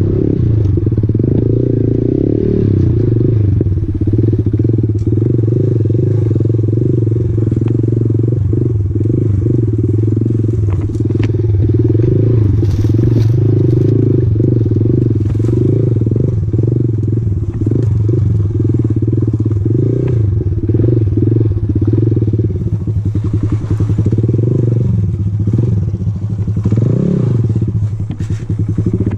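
Honda MSX 125's single-cylinder four-stroke engine running as the bike is ridden off road over rough ground, the revs wavering up and down with the throttle, with occasional knocks and rattles from the bike over bumps. Near the end the engine revs up briefly and drops back.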